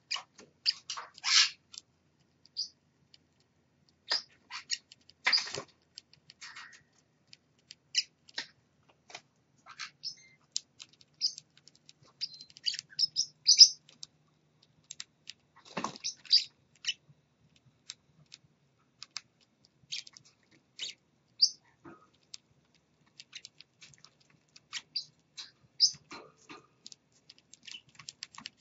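Caged parrotlets, a clutch of chicks and an adult, giving short, high chirps and squeaks at irregular intervals, a few of them louder, over a faint low hum.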